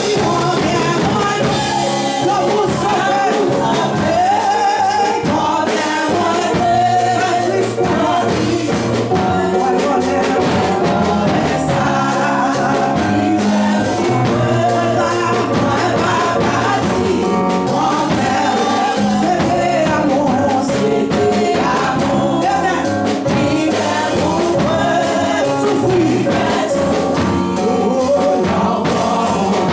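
Live gospel music: a congregation or choir singing with a band accompanying, with steady bass and a drum beat.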